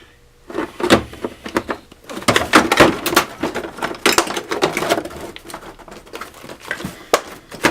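Irregular clatter of hard tools being handled, with many sharp knocks and clicks of metal and plastic parts.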